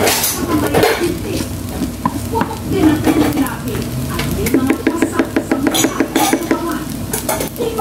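Plastic slotted spatula scraping, stirring and turning fried rice in a nonstick frying pan, with light sizzling. Quick, repeated scrapes and taps against the pan, with a dense run of them past the middle.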